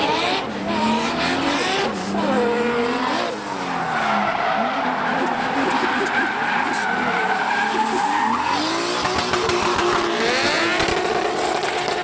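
Drift cars sliding in tandem, engines revving up and down hard with long tyre squeal and skidding. The engine notes rise, hold high through the middle, dip about eight seconds in, then climb again.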